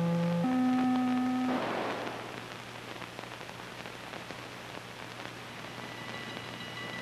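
Electronic soundtrack music: a few held synthesizer notes stepping up and down in pitch, then a burst of rushing noise about a second and a half in that fades into a low hiss. Near the end a high sustained chord of tones enters.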